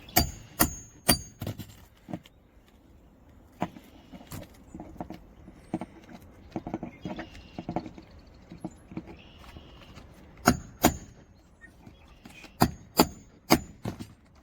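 Hammer blows on a roof snake driving a roofing nail under a shingle: sharp metal-on-metal strikes with a brief ringing tone. There are four quick strikes at the start, softer knocks and handling in the middle, and a run of about six strikes near the end.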